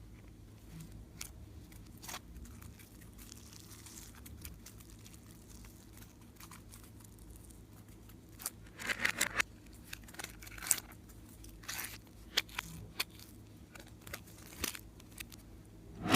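Slime being worked by hand, giving scattered sticky crackles and pops, with a quick run of them about eight to nine and a half seconds in.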